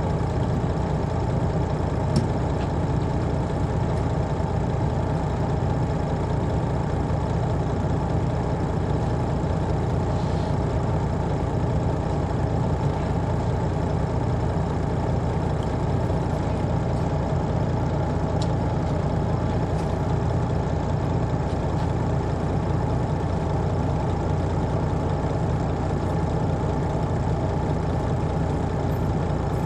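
Detroit Diesel Series 60 inline-six diesel of a 2002 MCI D4000 coach running steadily, heard from the back of the passenger cabin. A low, even drone with a couple of faint clicks.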